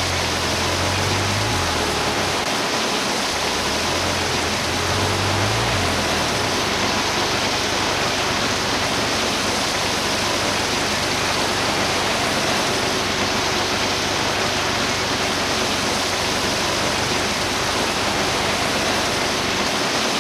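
A loud, steady rushing hiss of even noise that starts and stops abruptly, with a low hum underneath for the first six seconds or so.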